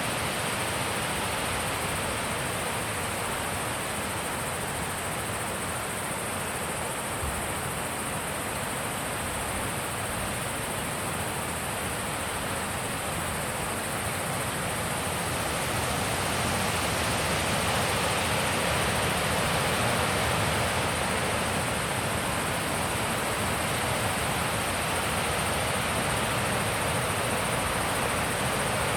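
Wind blowing steadily, a rushing noise that swells louder about halfway through and holds there.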